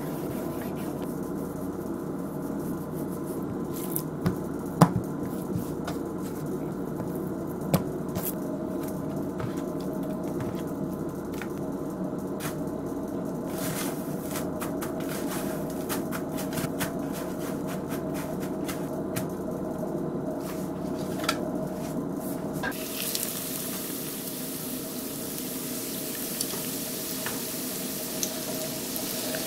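Wet squishing and crumb crackles as cutlets are coated in thick egg batter and pressed into panko breadcrumbs in metal trays. About 23 seconds in, breaded cutlets sizzle steadily as they shallow-fry in hot oil in a pan.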